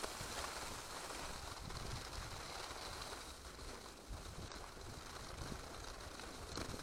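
Skis running over groomed snow, a steady hiss, with wind buffeting the body-worn camera's microphone as a low, uneven rumble.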